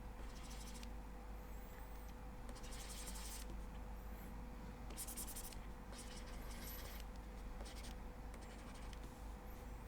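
Stylus scratching across a pen tablet in a series of short strokes, roughly one every second or so, over a faint steady hum.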